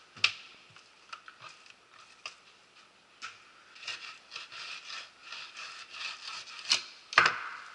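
Fillet knife sawing between the skin and flesh of a bluefish fillet on a wooden cutting board, a rasping scrape from about three seconds in as the skin is taken off. A few sharp knocks on the board, the loudest near the end.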